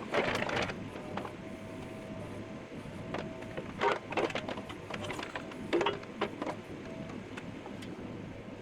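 Kubota KX71-3S compact excavator running with a steady hum and a faint whine, broken by several sharp metallic knocks as the quick-connect bucket is worked on or off.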